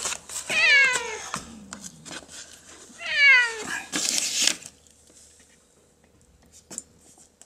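A tabby cat meowing twice, each call about a second long and falling in pitch, the second ending in a breathy rush. After that only faint small ticks.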